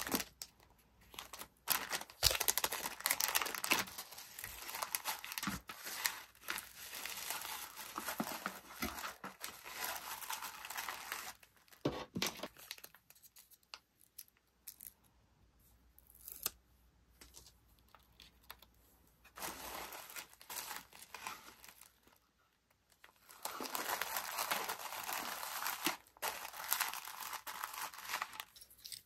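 Cellophane bags and tissue paper crinkling and rustling as a small order is packed into a cardboard box. Two long stretches of handling, with a quieter middle broken by a few sharp clicks.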